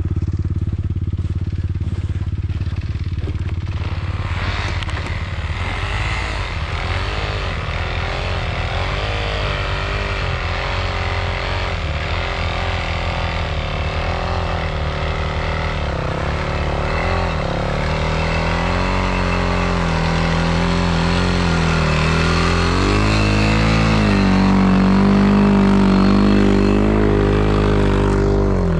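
Engines throughout: a quad idles steadily close by while a motorcycle approaches on snow, its engine revving up and down. Near the end the sound grows louder as the quad moves off under throttle.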